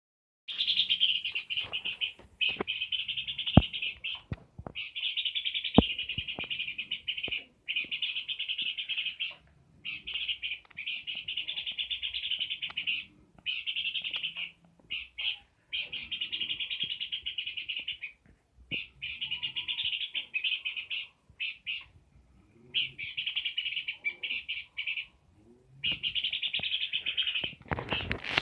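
Peor bird singing vigorously: long, rapid, high-pitched song phrases of one to three seconds each, repeated again and again with short pauses. Two sharp clicks come in the first six seconds, and a loud burst of noise comes at the very end.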